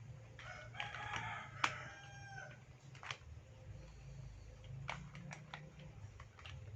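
A single drawn-out pitched call of about two seconds, beginning about half a second in. Scattered sharp clicks and clacks of plastic toy pieces being handled run through it.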